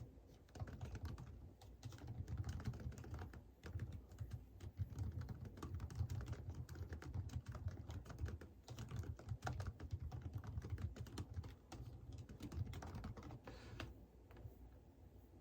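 Typing on a computer keyboard: quick runs of key clicks with short pauses, stopping about a second before the end.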